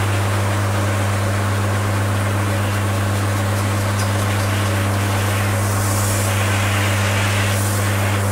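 Pressure washer spraying a fine water jet onto a car radiator core to clean its fins, the spray hissing over a steady low hum from the washer's pump motor. The hiss brightens briefly twice in the second half.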